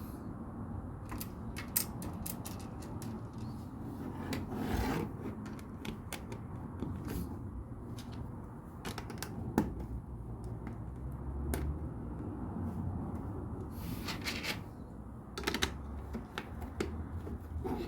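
LEGO plastic pieces being handled and pressed together: scattered sharp clicks and taps, with a few short rustles of pieces being sorted or picked through, around five seconds in and again near fourteen to fifteen seconds.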